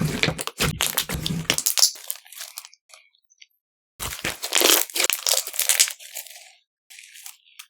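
Clear slime being pressed and squeezed by hand, crackling and popping with trapped air. The crackling comes in two dense stretches with a pause of about a second between them, then a few faint pops near the end.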